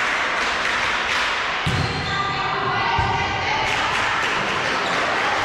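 Volleyball struck during play in an echoing sports hall: two dull thuds, about two and three seconds in, over a steady din of voices and calls.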